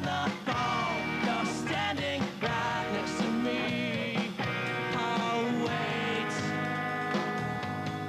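A rock band playing live: electric guitars and bass over a steady drum beat.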